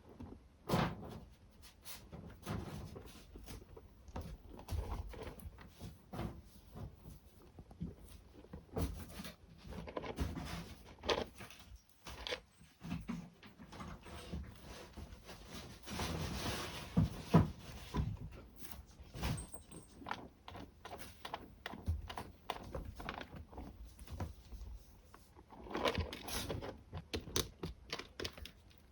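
Kittens scratching and digging in cat litter, with scattered small knocks and taps, and two longer spells of scraping about halfway through and near the end.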